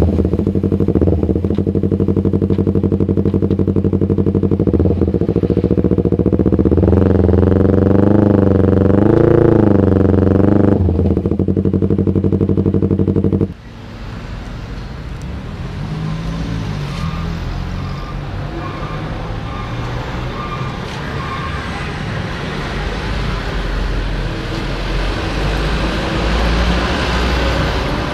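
Yamaha MT-25's parallel-twin engine running steadily through a Shadux racing exhaust, its pitch wavering up and down for a couple of seconds with light throttle blips. About halfway through it cuts off abruptly to a quieter, rougher engine sound with a noisy background.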